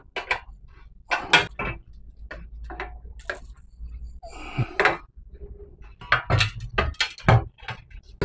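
Metal tools and mounting hardware clinking and knocking as they are handled during an air-conditioner installation. The strikes are separate and sparse at first, with a short scrape midway, and come thicker near the end.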